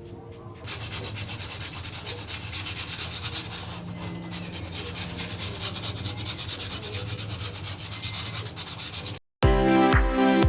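Styrofoam being rubbed with quick, even strokes, as in sanding a craft piece. The rubbing stops abruptly near the end, and loud electronic music starts.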